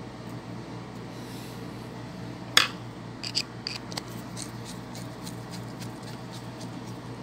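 Handling clicks of a screwdriver and lamp socket as a wire is fastened to the socket's terminal screw: one sharp click about two and a half seconds in, then a few lighter clicks and ticks, over a steady low hum.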